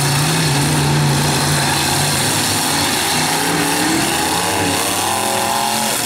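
Several V8 demolition derby car engines running hard and revving, their pitch rising and falling a few seconds in.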